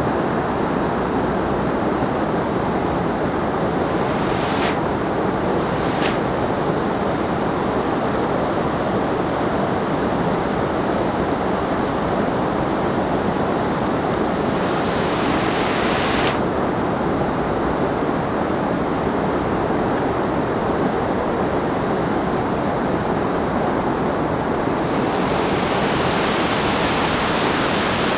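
Waterfall: a steady, loud rush of falling water, its hiss growing brighter for a moment around the middle and again near the end.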